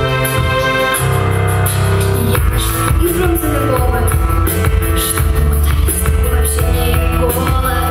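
Pop song backing track: held keyboard chords, then a drum beat comes in about two and a half seconds in, and a girl starts singing over it.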